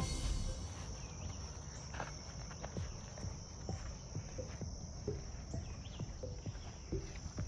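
A steady, high-pitched insect chorus from the surrounding woods and brush, with soft, irregular low thumps underneath.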